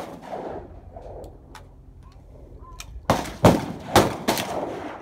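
Shotgun fire at a clay-target range: the ringing tail of a shot at the start, a few faint clicks, then several loud shots close together from about three seconds in.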